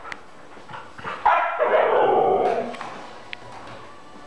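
Siberian husky vocalizing: one long, loud call that starts about a second in and slides down in pitch over about a second and a half, the excited "talking" noise of a husky keyed up for a walk.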